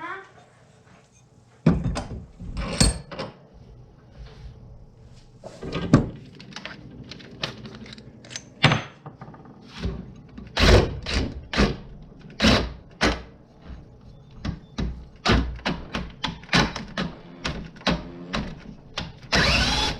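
A long run of irregular sharp knocks and thunks from work on a hatchet head to free a broken drill bit stuck in its eye. Near the end an electric drill starts running.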